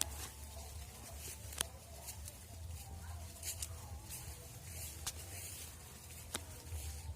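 A few sharp, isolated clicks at irregular intervals over a steady low rumble.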